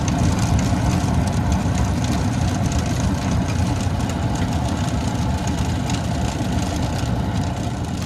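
A vehicle engine idling steadily, a low, even drone with no change in speed.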